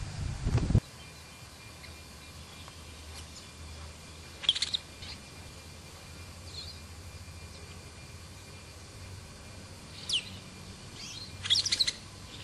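Brown-and-yellow marshbird calling in short, high notes: a loud burst about four seconds in, a faint call a couple of seconds later, a quick falling note about ten seconds in and a loud cluster of calls near the end. A low rumble at the start stops abruptly in under a second.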